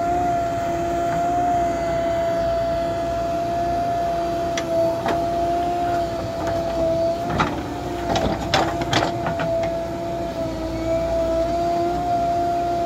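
JCB backhoe loader running with a steady whine while its backhoe digs soil and stones and dumps them into a tractor trolley. Several sharp knocks from the bucket and stones come around the middle.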